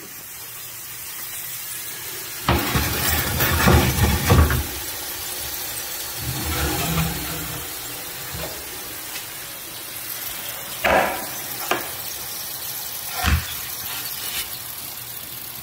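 Utensils scraping and clinking against a roasting pan and plates as roasted carrots are served, in several short bursts over a steady hiss.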